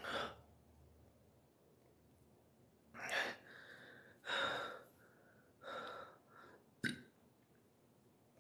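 A man breathing heavily, with four or five separate audible breaths or gasps, and a short sharp click just before the end.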